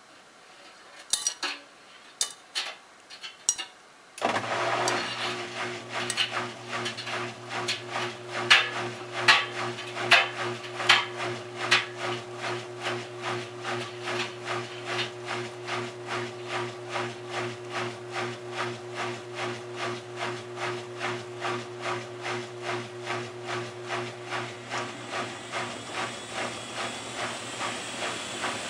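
Miele Touchtronic W3033 front-loading washer going into a spin. After a few clicks, its motor starts about four seconds in with a steady hum, and the drum thumps rhythmically two to three times a second, with heavier knocks early on. A hiss grows near the end as it speeds up. The knocking fits the machine standing unbalanced on carpet.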